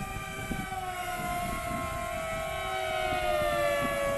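Whine of several FPV racing flying wings' motors and propellers flying by, a few overlapping tones sliding slowly lower in pitch. Wind buffets the microphone underneath.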